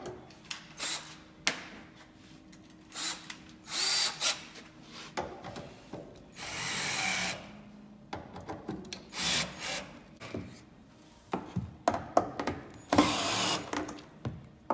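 Cordless drill driving bolts tight into a cedar chair frame, in a series of short bursts, one lasting about a second, with knocks and clatter between them as the driver moves from bolt to bolt.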